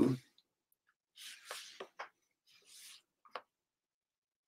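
Faint, short scratchy strokes of pencil and paper on a sketchbook page, with a few light clicks in the middle.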